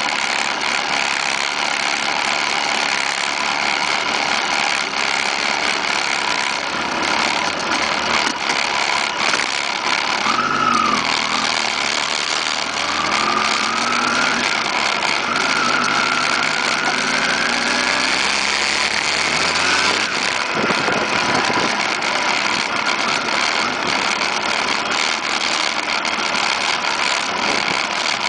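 Motorcycle engines running continuously, with one revving and rising in pitch for several seconds in the middle.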